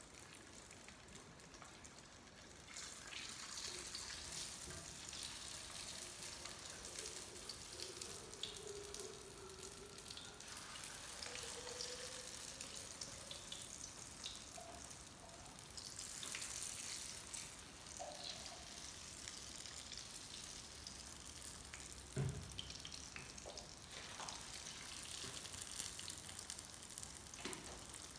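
Spring rolls frying in a pan of hot oil, a steady high sizzle that grows louder about three seconds in. A few small clicks and a single knock about two-thirds of the way through.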